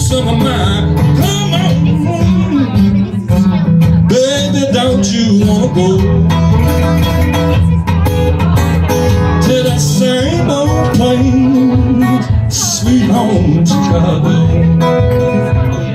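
Solo acoustic blues: an acoustic guitar strummed in a steady groove, with a harmonica played from a neck rack bending notes over it.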